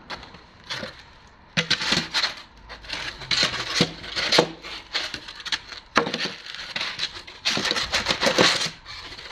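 White moulded foam pipe-insulation half-shells scraping, creaking and knocking against steel heating pipes as they are pushed into place, in irregular bursts of rubbing and crackling from about one and a half seconds in. The gap between the two pipes is too narrow, so the shells are being forced and will not seat.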